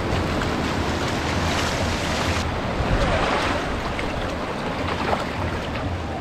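Small surf washing in and out over the sand at the water's edge, in gentle swells, with wind rumbling on the microphone.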